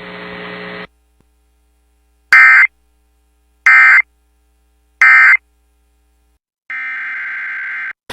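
Emergency Alert System SAME end-of-message data tones from a weather radio broadcast: three short, loud bursts of buzzing data tone about a second apart, marking the end of the warning. A steady hum from the broadcast cuts off within the first second, and a longer, quieter burst of the same kind of tone comes near the end.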